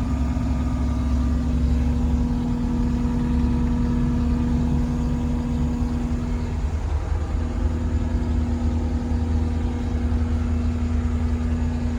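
2020 Takeuchi TL10V2 skid steer's diesel engine running steadily at a constant speed, with a brief waver in its note about seven seconds in.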